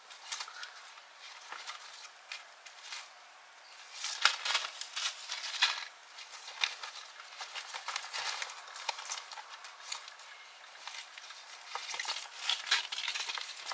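Paper seed packets and potting soil handled while sowing seeds into a tray: rustling and short crackles. The crackling comes in clusters, about four seconds in and again near the end.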